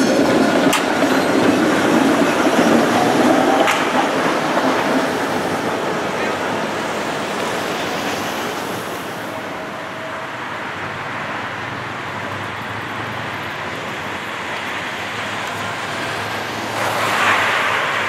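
Tatra tram train rolling past close by, steel wheels running on the rails, the noise fading after about four seconds into steady street traffic. A car passes close near the end.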